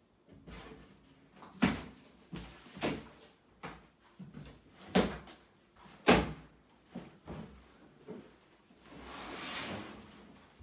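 A run of sharp knocks and clacks from hand tools and handling at a tiled wall, four of them loud, followed near the end by about a second of cardboard rustling as a large box is pulled open.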